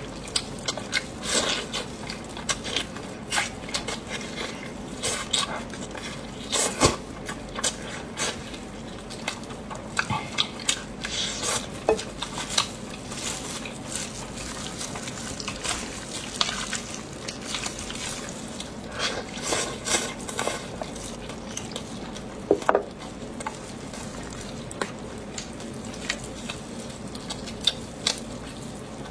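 Close-miked eating sounds: eating utensils clicking and scraping against a dish as food is stirred and picked up, in irregular clicks with a few louder clinks.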